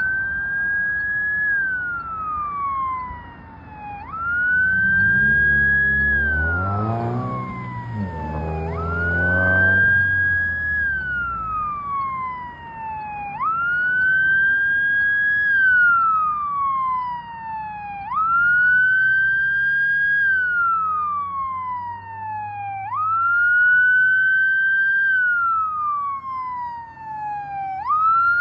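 Ambulance siren in wail mode: each cycle jumps quickly up in pitch, then slides slowly down, repeating about every four and a half seconds. About five seconds in, a vehicle passes close by with a brief swell of engine and road noise.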